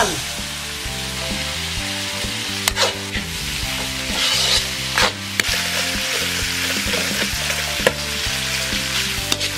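Beef cubes with onion, tomato and chilli sizzling in a hot oiled wok while a metal ladle stirs them, scraping and knocking against the pan several times. Soft background music plays underneath.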